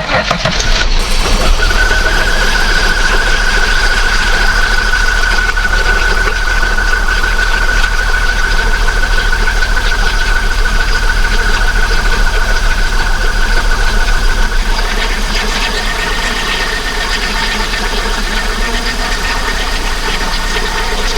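Holden VX Commodore's 3.8-litre Ecotec V6 running at idle from a cold start after about three years of sitting, with a steady high-pitched squeal over it. The squeal shifts slightly higher and the engine settles a little quieter about two-thirds of the way in.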